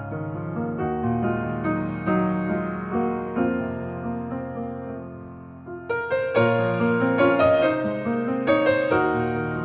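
Background piano music: slow, gentle held chords that fade down, then a louder phrase about six seconds in.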